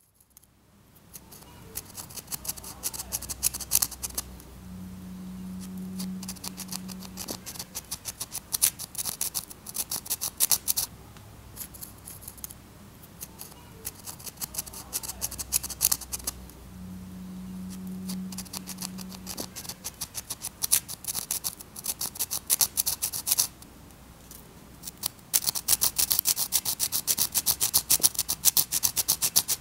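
Pencil point scratching over rough asphalt: a dense crackle of tiny scrapes that swells and fades in waves. A short low hum comes in twice, about five and about seventeen seconds in.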